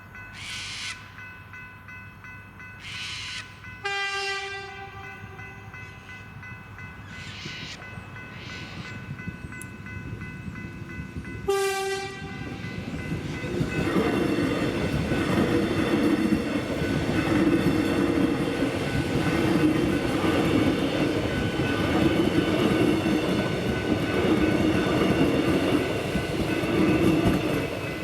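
An X'Trapolis electric train sounds its horn twice, about a second each, at about four and eleven seconds in, then passes through the level crossing with a loud rumble of wheels and motors that lasts to the end. Steady high ringing tones from the crossing's electronic bells sound throughout.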